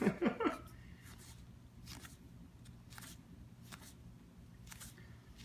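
Playing cards being flipped through one at a time: soft, short paper snaps and slides about once a second.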